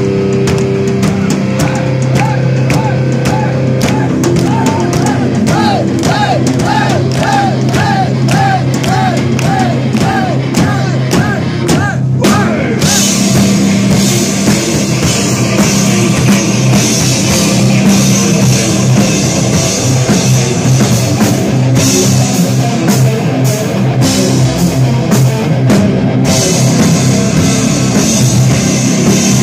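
Live heavy metal band playing: distorted electric guitars, bass and drums. A high melody of repeated bending notes, about two a second, runs through the first half; about thirteen seconds in, the full band comes back in hard with crashing cymbals.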